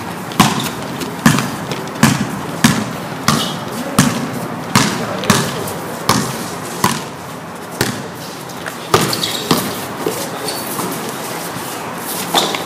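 A basketball being dribbled on a hard concrete court: a run of sharp bounces, roughly one to two a second, spaced less evenly in the second half, with players' voices underneath.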